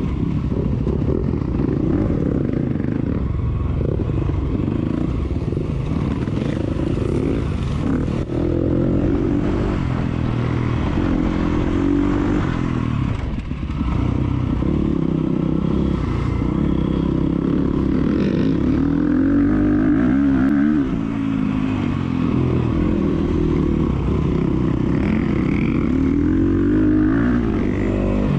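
Enduro motorcycle engine running hard off-road, its revs rising and falling continually with throttle and gear changes, with a clattering rattle alongside. The engine note dips briefly about 13 seconds in and again around 21 seconds.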